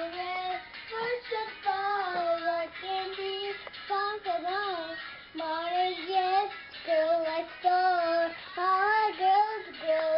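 Young girl singing a tune in short phrases, her high voice sliding between notes.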